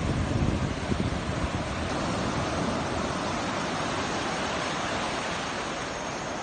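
Big sea waves breaking and washing up the beach: a steady rushing surf. Wind buffets the microphone with low gusts in the first second or so.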